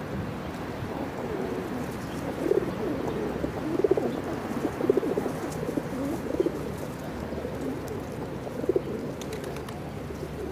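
A flock of white pigeons cooing while they feed, with short low coos overlapping and coming again and again.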